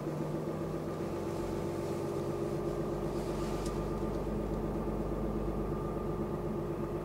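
Ram 4x4 pickup truck's engine running steadily at low speed, heard from inside the cab.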